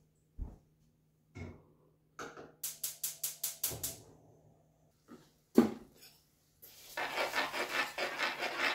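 Kitchen clatter: scattered knocks and a quick run of clicks, one loud knock about five and a half seconds in, then a metal spoon stirring rice in a saucepan, a dense scraping rattle over the last three seconds.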